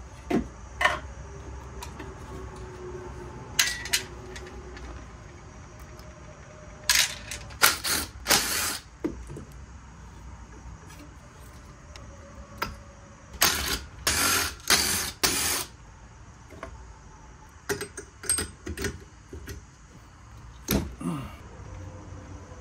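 Small-engine teardown on a workbench: scattered clicks and clinks of metal parts being handled and set down, and two spells of short runs of a cordless impact driver backing out bolts, about seven seconds in and again about halfway through.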